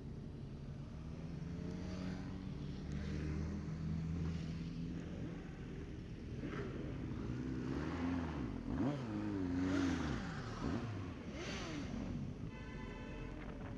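Several motorcycle engines running in a procession, their engine notes rising and falling as they rev, loudest about two-thirds of the way through. A brief higher tone sounds near the end.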